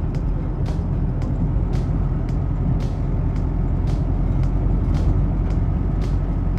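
Vehicle driving, a steady low engine and road rumble, with irregular short high-pitched ticks coming about twice a second.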